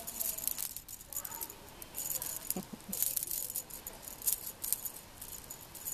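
Cat wand toy with feathers and a furry lure being shaken and dangled, giving several short, light rattles and jingles.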